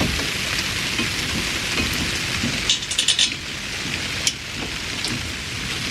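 Light metal clicks and clinks of brake parts and tools being handled, a quick run of them about three seconds in and one more a little later, over a steady hiss.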